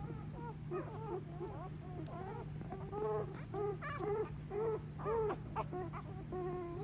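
Young mini goldendoodle puppies squeaking and whimpering: a run of short, high squeals that rise and fall in pitch, loudest about three to five seconds in.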